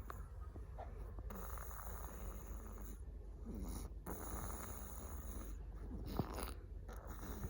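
A sleeping person snoring, slow breaths a few seconds apart.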